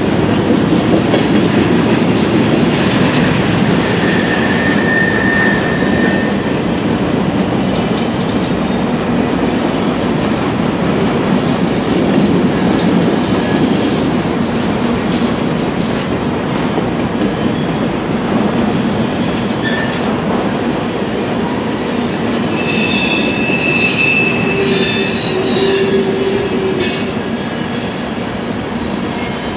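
Freight cars of a long CN mixed train (boxcars, centerbeam flatcars, a tank car) rolling past: a loud, steady rumble of steel wheels on rail with a few sharp knocks. High wheel squeals come in briefly about five seconds in and again, several tones at once, through the last third.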